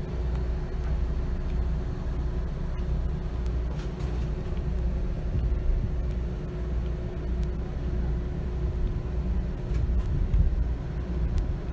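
Steady low rumble of running machinery heard inside a motor yacht's cabin, with a faint steady hum above it and a few light clicks.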